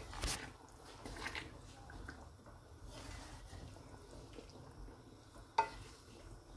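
Spatula stirring a thin, watery curry in a metal pan: faint sloshing of liquid, with a sharp knock of the spatula against the pan right at the start and another near the end.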